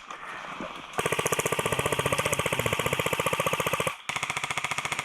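Airsoft electric gun firing on full auto: a fast, even rattle of shots in a long burst starting about a second in, a brief break, then a second burst.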